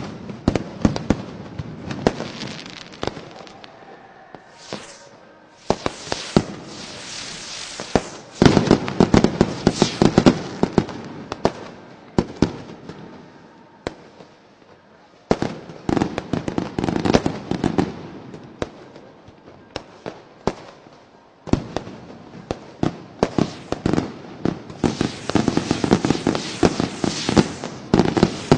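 Fireworks and firecrackers going off: a stream of sharp bangs and pops that thickens into dense crackling volleys about eight seconds in, again around sixteen seconds, and near the end, with quieter lulls between.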